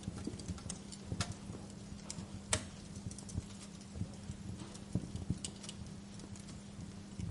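Wood fire crackling in a fireplace: irregular sharp pops and snaps, the loudest about two and a half seconds in, over a steady low hum.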